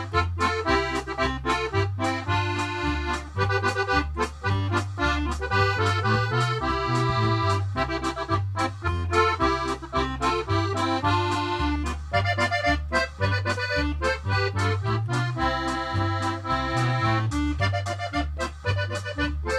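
Instrumental background music with a steady beat and a bass line stepping between low notes.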